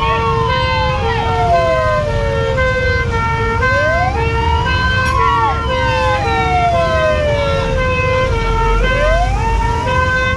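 Two emergency-vehicle sirens sounding at once: a wail that rises over about a second and falls slowly over about three, repeating, over a two-tone siren stepping quickly back and forth between a high and a low note. A low rumble runs underneath.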